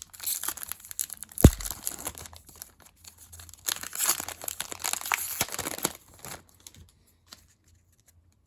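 Trading card pack wrapper being torn open and crinkled, rustling in bursts that stop about six seconds in, with one sharp thump about a second and a half in.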